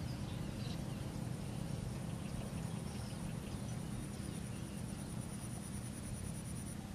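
Outdoor ambience: a steady low rumble, with faint bird chirps and a high, thin insect trill that grows louder over the second half.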